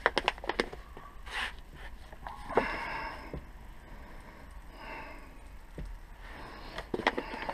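A man breathing and sniffing in three soft, hissy breaths, with a few light clicks and taps as metal parts are handled, near the start and again near the end.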